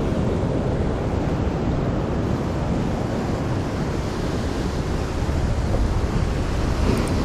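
Rough sea surf breaking and washing over shoreline rocks, a steady rushing noise, with wind rumbling on the microphone.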